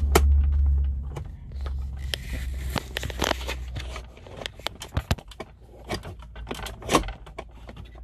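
Scattered light clicks and scrapes of the heater-flap control cable being worked by hand inside a VW T5 Transporter's dashboard, over a low rumble of phone handling noise that stops about four seconds in.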